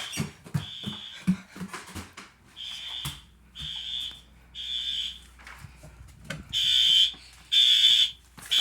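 Fire alarm horn beeping in the temporal-three evacuation pattern: three half-second beeps, a pause, then three more. The final set is louder. A few knocks sound in the first couple of seconds.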